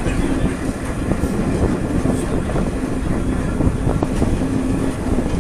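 Renfe Serie 442 electric multiple unit running along the track: a steady rumble of wheels on rail with a faint steady hum and a few light knocks.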